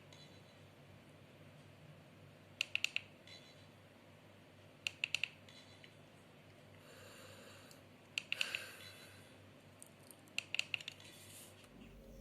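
FeiyuTech Vimble One gimbal stabilizer running with a faint steady hum, broken by quick clusters of three or four sharp clicks about every two to three seconds: the extraneous noise the stabilizer makes in operation.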